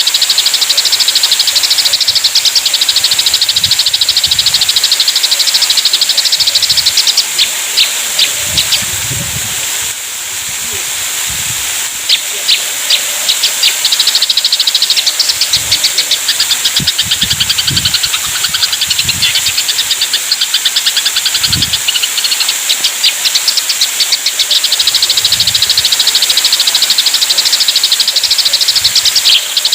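Eurasian tree sparrows chattering in a fight: dense runs of rapid, high chirps over a steady high hiss. The chatter thins to a few separate chirps about a quarter of the way in, then picks up again.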